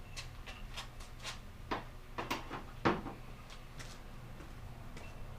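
Ball joint press kit being handled: a scattered series of light clicks and knocks as the metal press parts are picked out and set down, the loudest about three seconds in.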